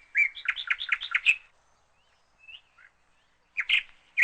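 Small bird chirping: a quick run of about seven short, high chirps, a pause with one faint note, then another short burst of chirps near the end.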